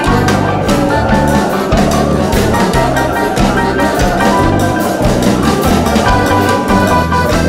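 Music with a steady drum beat and a bass line.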